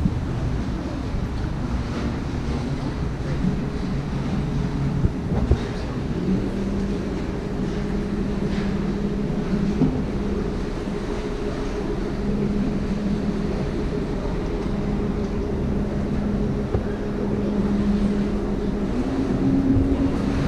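Canal cruise boat's engine running steadily with a low hum, its pitch stepping up near the end as the engine speeds up.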